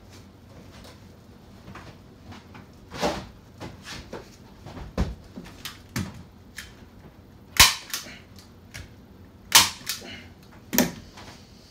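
A staple gun firing staples through pool-table cloth into the table's wooden frame: about half a dozen sharp snaps, irregularly spaced a second or two apart, as the cloth is pulled tight and stapled down.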